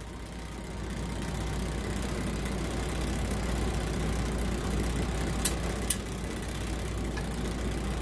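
Steady low hum over a constant background rumble, with two light clicks about five and a half seconds in as multimeter test leads and wires are handled and twisted together.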